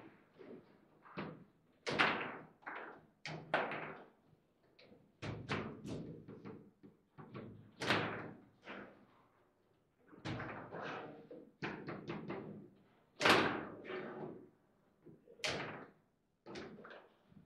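Table football being played: the ball cracking off the rod-mounted players and the table's walls in irregular sharp knocks, some in quick clusters, each with a short ring.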